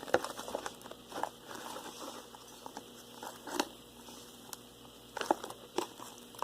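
Homemade marshmallow slime being kneaded by hand in a bowl, giving irregular small sticky clicks and crackles with a few sharper pops.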